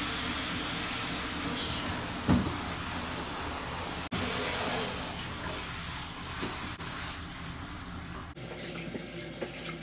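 Water spraying from a handheld shower head into a plastic folding tub, a steady rush that later plays onto a cat's fur. It turns quieter in the last second or so.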